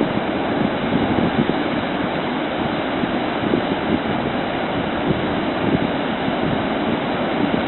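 Steady rushing of water, with wind buffeting the microphone in small gusts.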